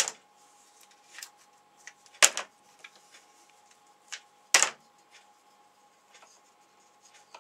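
Spring clamps being handled and squeezed onto a freshly glued wooden block on a metal-topped workbench: three sharp clacks, at the start, about two seconds in and about halfway through, with lighter clicks between.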